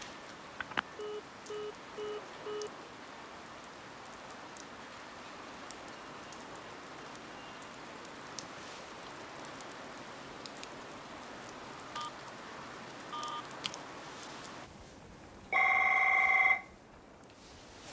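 Telephone busy tone, four short beeps about half a second apart, after the silent caller hangs up, over a steady hiss of rain. Near the end a telephone rings once with an electronic ring about a second long, the loudest sound.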